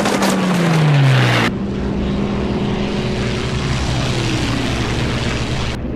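Film sound of WWII P-51 Mustang propeller fighters: an engine passes with its pitch falling while rapid machine-gun fire crackles over it. After a cut about a second and a half in, a steady propeller-engine drone follows.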